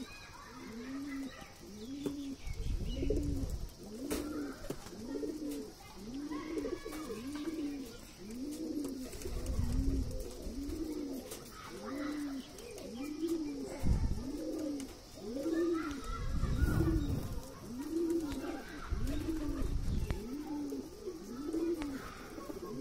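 Domestic pigeon cooing steadily, a low rising-and-falling coo repeated about once a second. A few low rumbles break in now and then.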